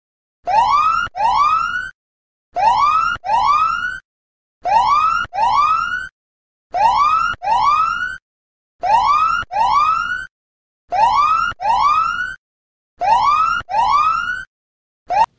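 Electronic 'whoop' alarm of a countdown timer that has run out, signalling that time is up. It sounds as pairs of rising whoops repeated about every two seconds, starting about half a second in and cut off just at the end.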